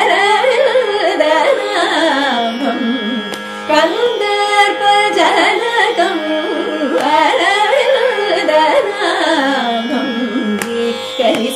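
Carnatic vocal music in raga Sri: the duo's voices sing a heavily ornamented, gliding melodic passage without clear words, over a steady drone.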